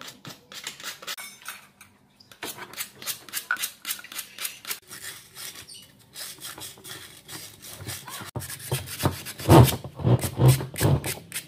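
Quick hand-rubbing strokes of a small block, several a second, with a brief pause about two seconds in and louder, deeper scraping strokes near the end.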